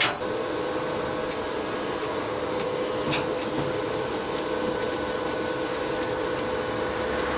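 Electric arc welding of a steel crossbar onto a dump truck body: a steady crackling, frying hiss of the arc with a steady machine hum underneath, starting just after the start.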